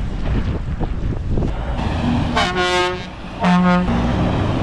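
Iveco Strator bullnose truck pulling away, its diesel engine giving a low rumble, with two blasts of its horn: a higher one about halfway through, then a lower, louder one a second later.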